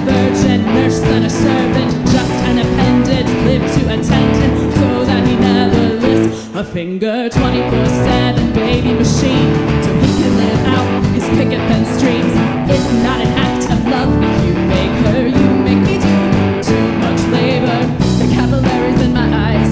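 Live rock band playing, with electric guitar and a drum kit, and a woman's voice singing over it. The band briefly drops out about seven seconds in, then comes back in.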